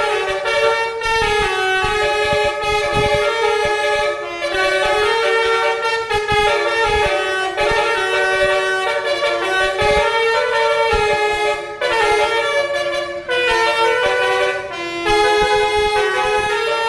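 Bus basuri telolet horn playing a melody: a run of loud air-horn notes stepping up and down in pitch, one tune phrase after another, with brief breaks between phrases.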